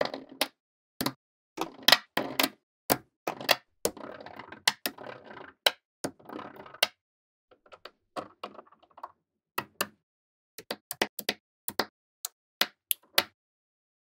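Small metal magnetic balls snapping together as strands are laid onto a block of balls. Sharp, irregular clicks, with a few short stretches of rattling.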